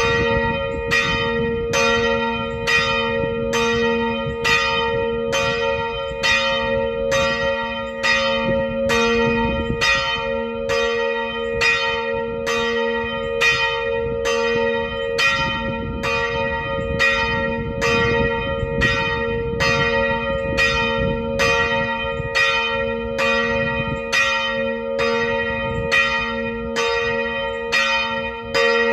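A single church bell, cast by Bettalli in 1811 and tuned to a slightly flat A-sharp, swung by an electric ringing motor in a continuous peal. The clapper strikes at an even pace of just over once a second, over a steady lingering hum.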